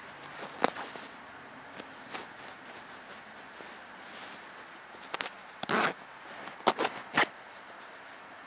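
Hands working the zipped fabric cover of an upholstered chair cushion: a short zipper rasp and several sharp clicks of the zipper pull and handling, with fabric rubbing between them. The clicks come about a second in and in a cluster between five and seven seconds.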